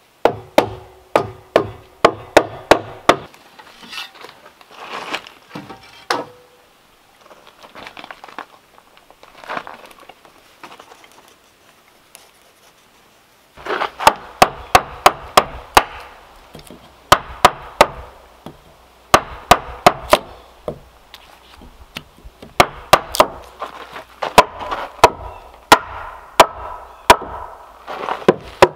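Hand tool striking wood in quick runs of sharp blows, about three or four a second, each with a short ring. A pause of several seconds in the middle holds only quieter handling and scraping, then the blows start again.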